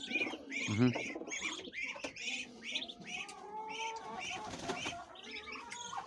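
Chicken chicks peeping over and over, several short high chirps a second.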